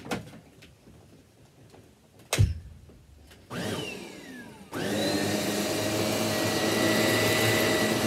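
A loud thump about two and a half seconds in, then a Shark Navigator upright vacuum's motor starts about a second later, winds down with a falling whine, and starts again about a second after that, running steadily with a high whine over the motor.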